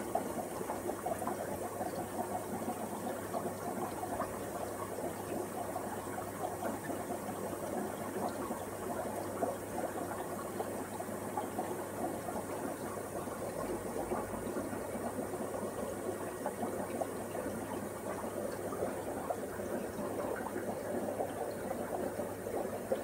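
Steady bubbling and gurgling of an aquarium's air-driven equipment, the Ziss egg tumbler and filter, with a low steady hum underneath.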